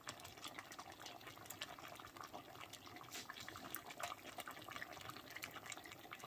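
Lamb stew bubbling faintly in its pot on residual heat after the burner is off, a steady run of small irregular pops.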